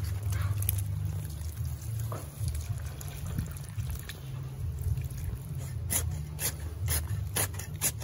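Water from a garden hose splashing into a bucket of dry clay soil, over a steady low rumble. From about six seconds in, a quick run of sharp knocks and scrapes as a hoe chops into the wetting clay.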